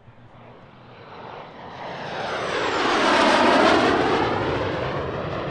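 An SB Lim-2 jet (a Polish-converted two-seat MiG-15) makes a pass: the jet noise swells to a peak about three and a half seconds in, then fades as it goes by.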